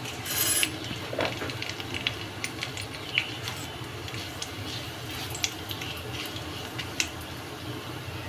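Cumin seeds and bay leaves sizzling in hot mustard oil in a kadhai, crackling with scattered pops as the tadka fries, with a brief hiss near the start. A wooden spatula stirs and scrapes the pan partway through.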